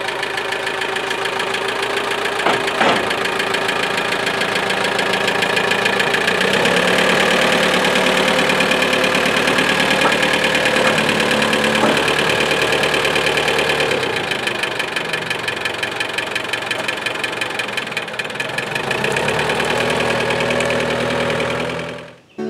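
Cub Cadet 7360SS tractor's 1.7-litre Mitsubishi four-cylinder diesel running as the tractor is driven off a trailer. Its engine speed rises about six seconds in and drops back about fourteen seconds in. There is a single knock about three seconds in.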